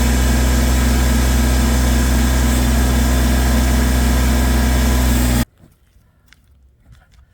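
An engine running steadily at a constant speed, which cuts off abruptly about five seconds in, leaving only faint scattered noises.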